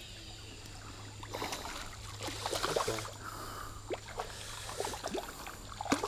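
Shallow river water splashing and sloshing in irregular bursts around the legs of a person wading in the current.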